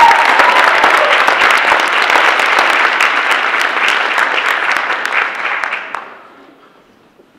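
Audience applauding, a dense clatter of many hands that dies away about six seconds in.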